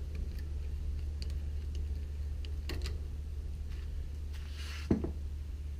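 Scattered light metallic clicks and handling noises from clamps being worked onto a wire rope's broomed-out end, with one short knock about five seconds in, over a steady low hum.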